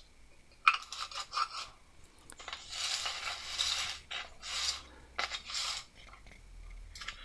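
Metal clicking and scraping as an old four-jaw lathe chuck is handled and turned round on the workbench: a quick run of sharp clicks about a second in, then several stretches of scraping.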